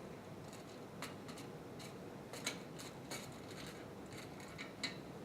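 Light clicks and taps of plastic parts being handled as a Brite Tap nipple-drinker unit is fitted into the spigot hole of a water cooler, about ten scattered clicks over a few seconds.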